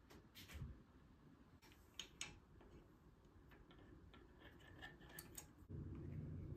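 Faint clicks and ticks of hand work on a bicycle's front end: the front wheel being seated in the fork, then a Tektro Oryx cantilever brake arm being fitted to the fork's brake boss with a hex key. A low steady hum comes in near the end.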